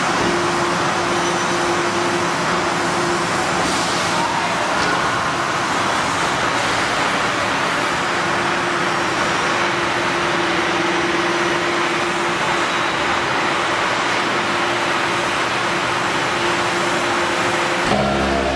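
315-ton hydraulic press running: steady hum and hiss of its hydraulic pump unit, with one held tone, as the ram moves down to press a salt lick block.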